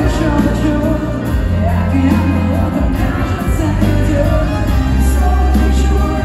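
Live pop song played loud over an arena sound system, with heavy bass under a singing voice.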